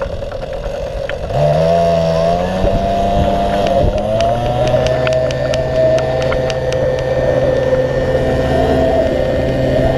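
Mosquito NRG powered hang-glider harness's small two-stroke engine running. It is throttled up about a second in, its pitch rising, then held at a steady high power for the launch run and takeoff.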